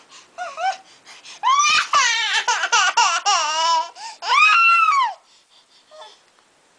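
A baby's high-pitched, wavering cries, a long stretch beginning about a second and a half in and a shorter one around four and a half seconds, ending about five seconds in.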